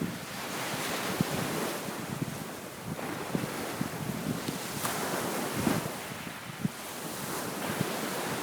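Wind-driven waves breaking and washing onto a sandy beach in a steady surging hiss, with strong gusty wind buffeting the microphone in low, irregular thumps.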